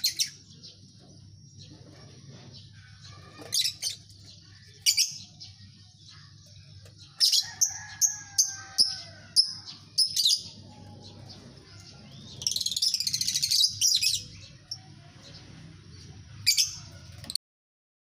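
A colony of lovebirds giving sharp, high-pitched chirps and squeaks in scattered bursts, with a quick run of calls about seven seconds in. About twelve seconds in comes a rapid chattering trill lasting about a second and a half. A faint low hum runs underneath, and the sound cuts off just before the end.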